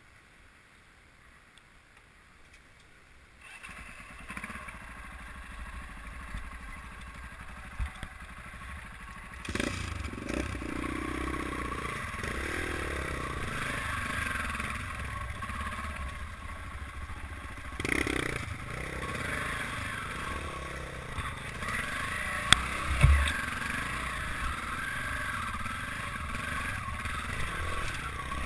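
Dirt bike engine running as the bike climbs rocky singletrack. The engine comes in faintly about four seconds in and grows louder from about ten seconds. A few sharp knocks sound over it, the loudest with a low thump about 23 seconds in.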